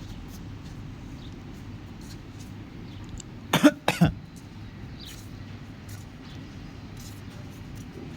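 Two short, sharp coughs in quick succession, under half a second apart, over a steady low rumble.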